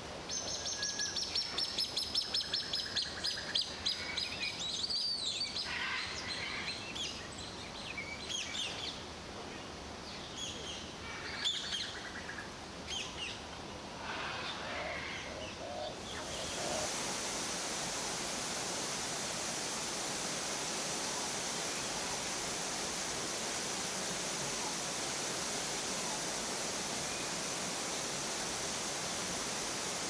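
Many birds chirping and calling in a netted walk-through aviary, opening with a rapid chattering series of high calls. About halfway through the calls give way to a steady rushing noise.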